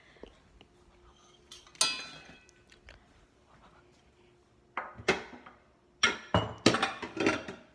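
Dishware being handled: one ringing clink about two seconds in, then a cluster of sharp knocks and clattering near the end.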